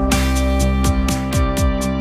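Background music with sustained tones over a steady beat of about four strokes a second.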